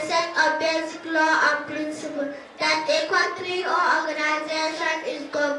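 Young girls singing into a handheld microphone: a melodic line of held notes with short breaks between phrases.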